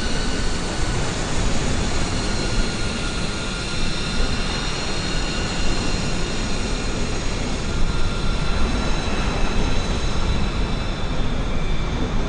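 Jet aircraft engines running with a steady roar and a thin high whine held over it.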